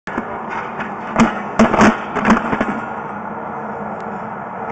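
Sewer inspection camera gear being handled before the camera head goes into the pipe: a cluster of sharp knocks and clatters over a steady hiss and faint hum, settling back to the hiss and hum after about two and a half seconds.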